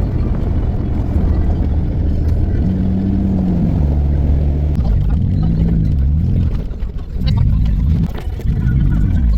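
An engine running with a low rumble, its pitch stepping down and shifting several times.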